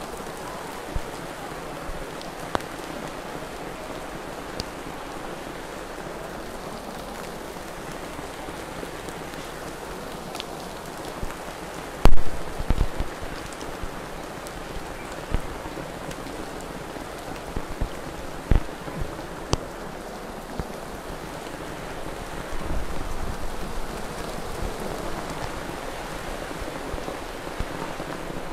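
Steady rain falling, with scattered sharp knocks over it. The loudest knock comes about twelve seconds in.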